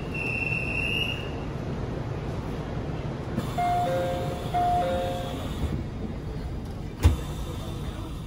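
Interior of a commuter train car standing at a platform, with a steady low rumble. A two-note door chime sounds twice in the middle, and about seven seconds in a single loud thump follows as the doors shut.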